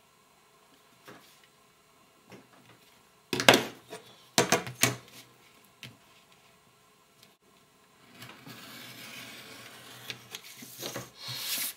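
Pattern-cutting tools handled on pattern card over a cutting mat: a few sharp knocks and clatters about three and a half to five seconds in, as a steel ruler and craft knife are set down and moved. Near the end comes a few seconds of steady scraping along the card.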